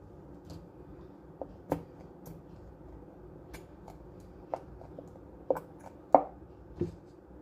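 Slime being handled, giving scattered short sharp clicks and pops at irregular intervals, about half a dozen, the loudest about six seconds in.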